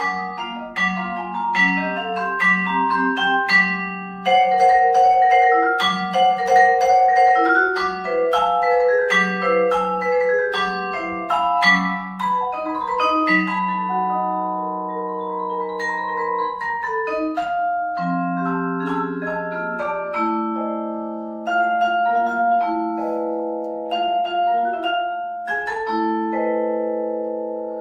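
Vibraphone played with mallets: struck notes and chords that ring on and overlap, a busy passage giving way to longer held notes and back.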